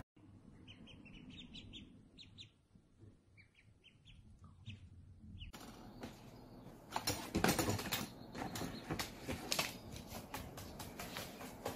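Ducklings peeping faintly, short high peeps. Then a magpie on a tabletop picking at and tugging a plastic packet: sharp taps, rustling plastic and wing flaps, louder in the second half.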